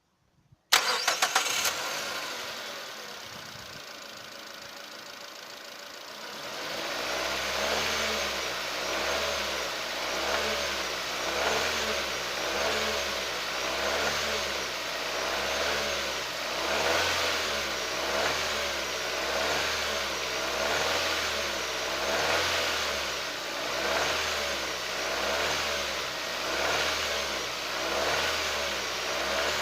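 Nissan Qashqai engine starting with a short burst of cranking clicks, then running at idle. About six seconds in, a louder noise joins that swells and fades about once a second: the idle knock and noise from the engine area that the owner is trying to trace.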